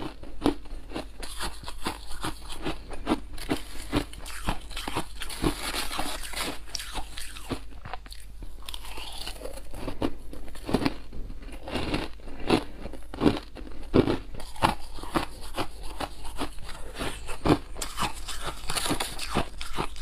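Close-miked chewing of soft, frosty white ice: a rapid, continuous run of crisp crunches, several a second, as mouthfuls are bitten and ground.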